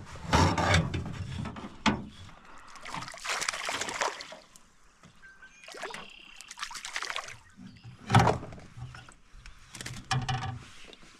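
A walleye splashing at the water's surface beside a canoe as it is landed with a landing net: several bouts of splashing and dripping water, with a few knocks and a louder thud about eight seconds in.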